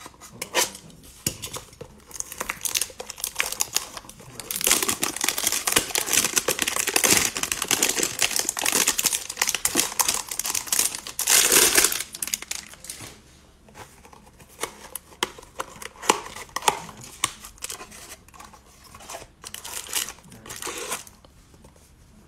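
A cardboard trading-card hanger box being torn open and its cellophane-wrapped card stack crinkled out. There is a dense run of tearing and crinkling from about four seconds in, loudest near twelve seconds, then scattered lighter crinkles and taps.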